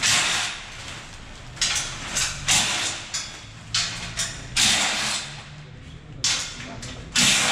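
A cordless drill/driver running in short bursts, about eight in a row, as bolts are backed out of the steel frame of a motorcycle shipping crate.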